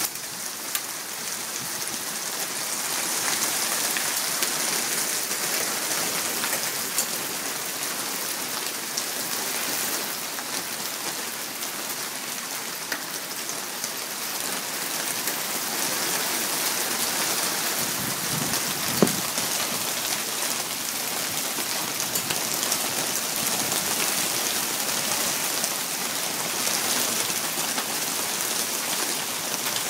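Hail falling steadily, a dense hiss of many small pellets striking grass, paving and wooden picnic tables, with one sharper knock about two-thirds of the way through.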